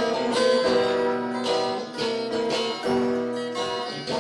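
Guitar music with no singing: strummed chords, a new chord struck every second or so.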